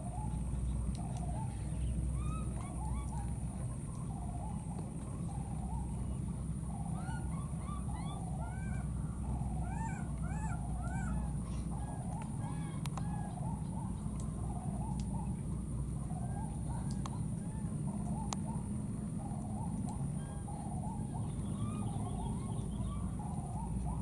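Many short, arched animal calls, repeated again and again with no pause, over a steady low rumble and a steady high hiss.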